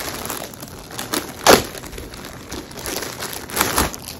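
Clear plastic packaging crinkling and rustling as it is worked off a pouch by hand, with a loud crackle about a second and a half in and another near the end.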